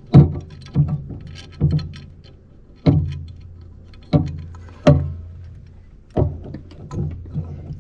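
A series of irregular knocks and thumps, about one a second, each followed by a short low ring.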